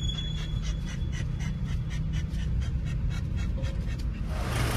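A dog panting fast and steadily, about four breaths a second, inside a moving Land Rover Discovery 3, over the low rumble of the vehicle. Near the end the panting stops and the vehicle noise grows louder.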